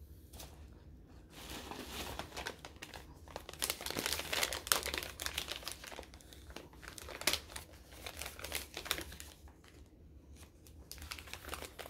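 A small paper bag being crinkled and torn open by hand, in irregular crackling bursts that are busiest in the middle and return near the end; the bag is resisting being opened.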